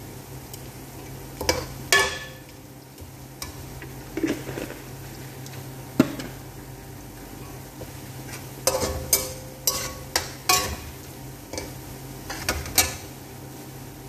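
A slotted metal spatula scrapes and clinks against a metal pan while stirring onion, garlic and herbs frying in oil, over a steady sizzle. The scrapes come in short clusters, about two seconds in, around six seconds, and in a quick run a little past the middle.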